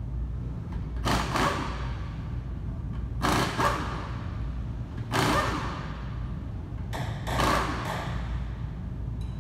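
Four short noisy bursts about two seconds apart, over a steady low hum: a wrench working loose the top transmission bolts, 18 mm, on a Volkswagen Mk7 GTI.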